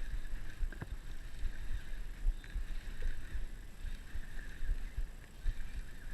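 Water slapping and knocking against the hull of a small fishing boat as it rocks, in irregular low thumps, with a faint steady high whine underneath and one sharp click about a second in.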